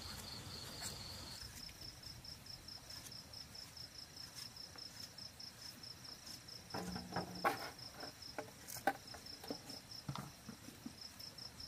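Night insects chirping in a fast, even, high-pitched pulse. A few short knocks and scrapes come around the middle, from a gourd being worked with a knife on the ground.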